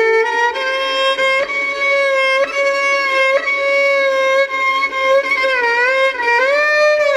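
Background music: a solo violin playing a slow melody of long held notes, with sliding pitch bends between notes.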